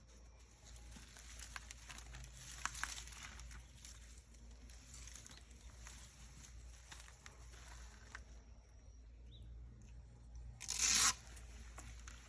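Sandpaper scratching over the painted car hood in irregular strokes, with one short, louder rasp near the end.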